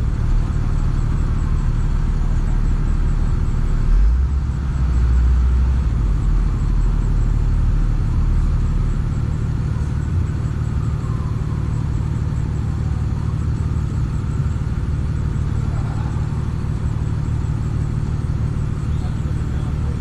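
Bucket truck's engine running steadily, a low rumble powering the aerial lift's hydraulics as the boom moves, growing louder for a few seconds about four seconds in.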